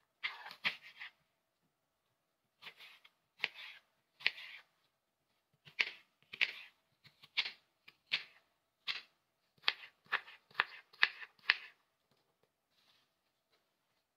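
A knife slicing through peeled apple and tapping the mat beneath, a crisp cut now and then and in quicker runs toward the end. The cutting stops about 12 seconds in.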